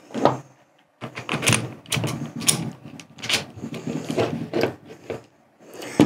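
Metal tool parts being handled and fitted together: a run of irregular knocks and clicks as a crimping die adapter is picked up and seated onto a battery-powered hydraulic crimping tool.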